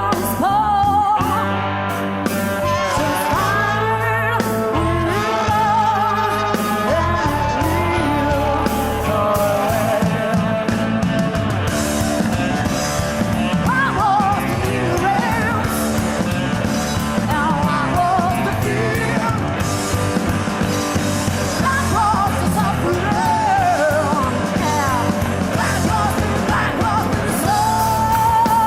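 Rock band playing live, with a woman's voice singing without clear words over guitar, bass and drums.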